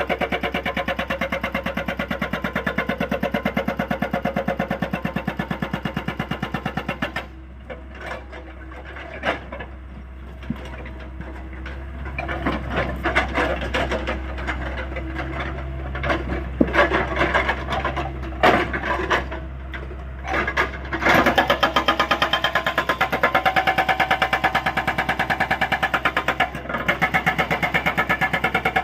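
Hydraulic rock breaker on a Hyundai 85A excavator hammering in rapid, even blows, stopping about seven seconds in and starting again about twenty-one seconds in. In the pause the excavator's engine runs on under scattered knocks and clatters.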